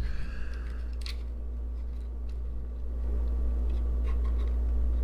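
Plastic camera parts being handled: a short scrape in the first second and a few small clicks, over a steady low hum.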